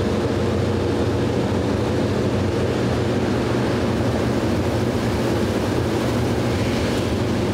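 An Antonov An-2's nine-cylinder radial engine drones steadily, heard from inside the cabin, with air rushing in through the side door as it is opened in flight; the rush grows a little near the end.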